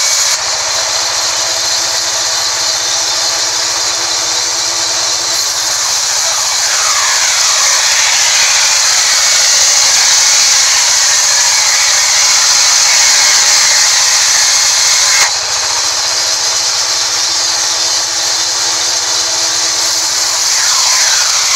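Sawmill band saw running and cutting lengthwise through a mahogany log, a loud, steady whine-and-rasp of the blade in the wood. There are a few short sliding pitch changes and an abrupt shift in the sound about 15 seconds in.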